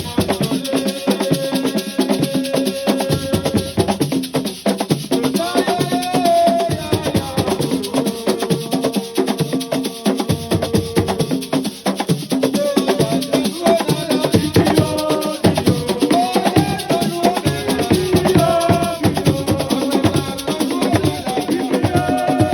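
Assiko music: drums and shakers playing a fast, dense rhythm, with a voice singing over it at times.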